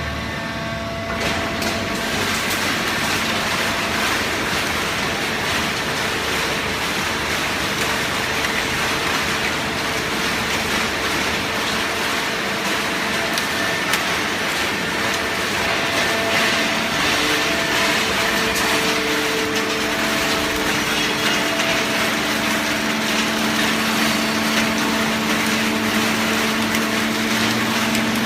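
Horizontal hydraulic cardboard baler running steadily: the hydraulic pump and motor hum under a rushing mechanical noise while the ram compresses cardboard. The hum grows stronger in the last several seconds.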